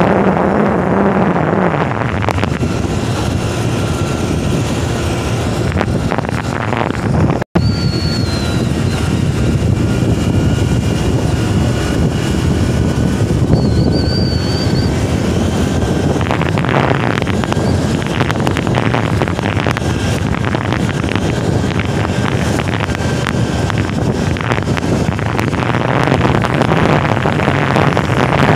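Steady wind rush on the microphone with the engine and road noise of a vehicle travelling at speed, broken by a momentary dropout about seven and a half seconds in.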